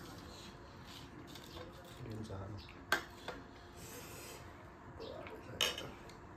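Metal forks and spoons scraping and clinking against ceramic plates, with two sharp clinks, one about three seconds in and one near the end.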